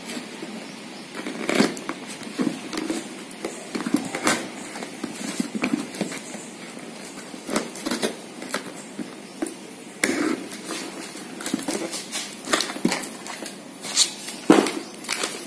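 A cardboard shipping box being cut and torn open by hand: a small blade slitting the packing tape, then the flaps pulled apart, heard as irregular scrapes, tearing and crackles.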